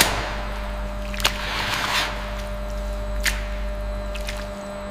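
Metal scoop stirring curds and whey in a stainless steel cheese vat: wet squelching and sloshing, with three sharp clinks of metal on the vat, over a steady machinery hum.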